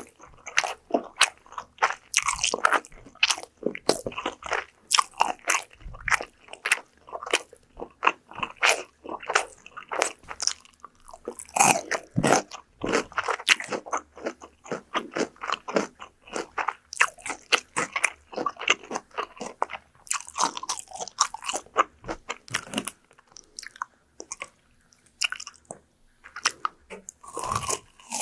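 Close-miked crunching bites and chewing of crispy fried food, many sharp crackly crunches in quick succession with brief pauses between mouthfuls.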